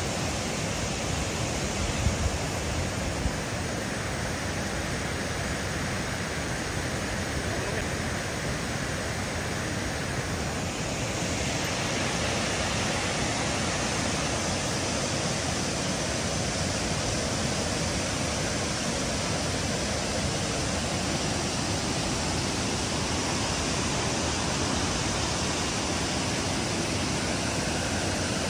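Water rushing steadily out of a dam's open floodgates, a constant even rush, with a few brief knocks about two to three seconds in.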